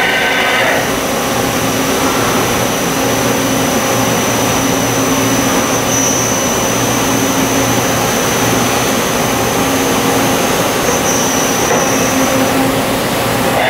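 Steady machine-shop running noise: a loud, even hiss with a thin high whine over it and a low hum that comes and goes.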